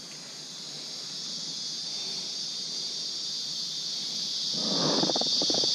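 Steady, shrill insect chorus, a continuous high buzzing that swells louder toward the end, with a brief burst of lower sound in the last second.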